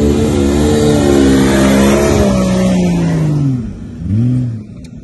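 Jeep Cherokee engine working hard as it drives up a sand dune. It holds a steady pitch, then eases off after about three and a half seconds. It gives one short rev just after four seconds, then drops away.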